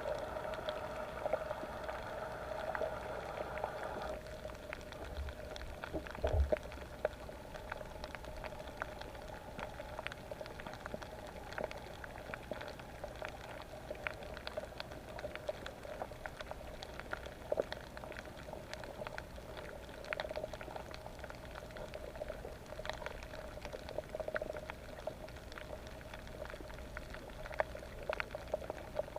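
Underwater reef ambience: a dense, irregular crackle of small clicks over a steady hum. A higher tone in the hum stops about four seconds in, and there are a couple of low thuds around six seconds in.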